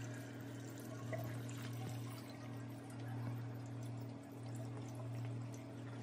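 Dirty wash water pouring from a portable twin-tub washer's drain hose into a partly filled stainless steel sink, over a steady low hum.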